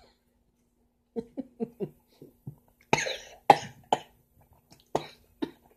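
A woman gives a quick run of short laughs, then coughs hard four times starting about three seconds in, choking on melon juice that went down the wrong way.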